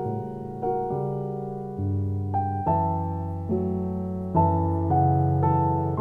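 Background music: slow, gentle piano, a new note or chord struck every half second to a second, each one fading away.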